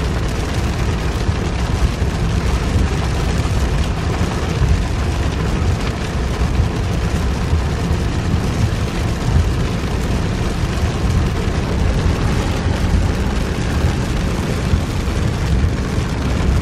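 Steady low rumble inside a moving car's cabin on a rain-soaked road: tyre and road noise on the wet pavement with a hiss of rain and spray over it.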